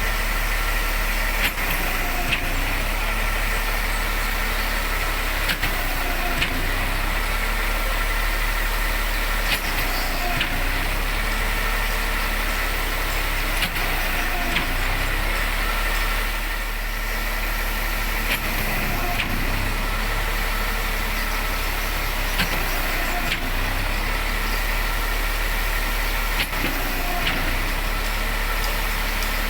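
Concrete pump truck's diesel engine running steadily, with a few short sharp knocks at irregular intervals.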